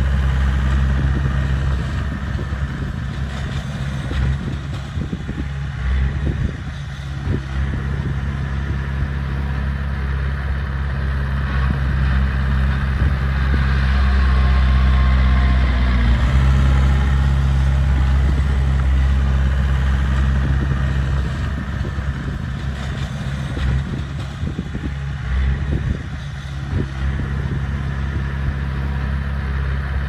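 Heavy diesel engine of earthmoving machinery running steadily, getting a little louder about halfway through and then easing back.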